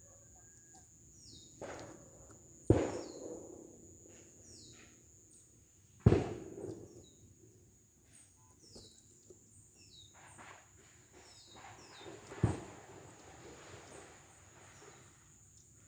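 Three sharp thuds on a cardboard box with animals inside, about 3 s, 6 s and 12.5 s in, each fading quickly, with a lighter knock just before the first. Behind them runs a steady high insect drone, with short falling bird chirps about once a second.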